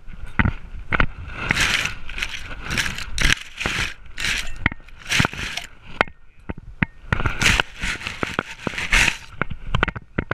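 Close-up knocking and scraping rustles of a GoPro strapped to a dog as the dog moves and tumbles through grass: sharp clicks mixed with short bursts of rustling, several a second, with a brief lull about six seconds in.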